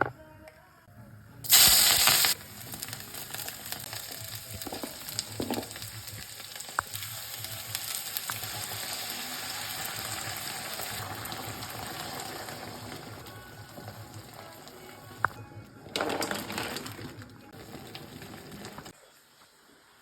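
Food frying in a hot pan: a loud burst of sizzling about a second and a half in, as when something goes into hot oil, then a steady sizzle with small pops, flaring up again near the end before stopping.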